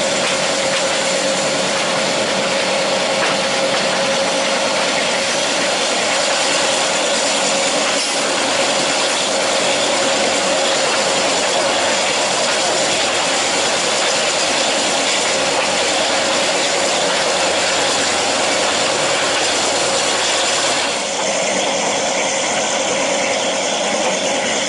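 Passenger train running, heard through an open carriage window: a steady noise of the carriage and its wheels on the track mixed with rushing air, with a thin steady tone through it. The sound shifts in character near the end.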